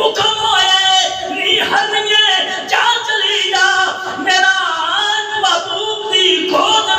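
A man preaching in a sung, chanted voice with long held notes, amplified through a microphone.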